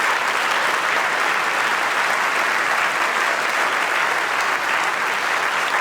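A large congregation applauding steadily, a dense even clapping.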